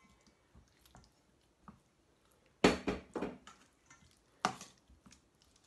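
Raw chicken drumsticks being turned by hand in a thick yogurt marinade in a stainless steel bowl: soft wet squishing, with a few short, louder knocks and squelches about two and a half seconds in and again near four and a half seconds.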